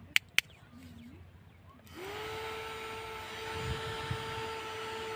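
Two sharp clicks, then about two seconds in a small battery-powered DC motor spins up and whirs at a steady high pitch, its pitch dipping right at the end.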